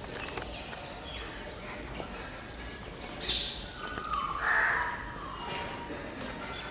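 Crows cawing: a short harsh caw about three seconds in, then a louder, longer one, over low farmyard background.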